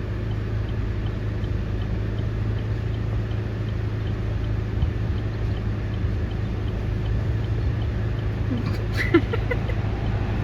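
Steady low engine drone of a vehicle, with a faint regular ticking at about two a second and a short sharp sound about nine seconds in.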